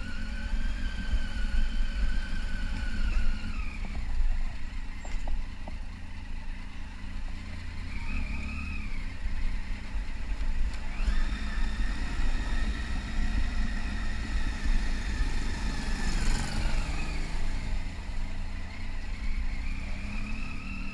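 Motorcycle engine running at low road speed, with a low wind rumble on the on-bike camera's microphone. A higher whine comes and goes several times.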